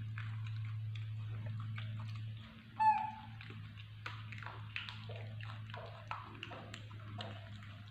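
A baby macaque chewing and handling a banana, with many small clicks and smacks, and one short, high squeak about three seconds in. A steady low hum runs underneath.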